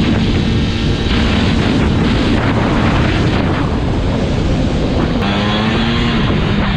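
Pickup plow truck's engine running with road and wind noise while driving; the engine note changes and steadies about five seconds in.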